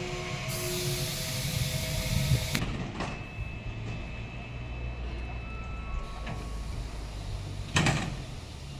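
Electric trains standing at a station platform. For the first two seconds or so there is a loud hiss of air over a low rumble. Then an E.464 electric locomotive stands with a steady low hum and a thin high whine, and a single sharp bang comes near the end.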